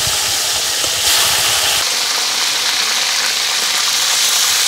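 Hot oil sizzling steadily as food fries.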